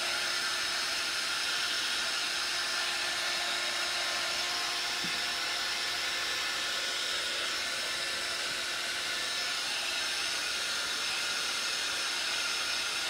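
Handheld craft heat gun running steadily: a constant hiss of blowing hot air with a faint motor hum, drying the paint on the tray surface.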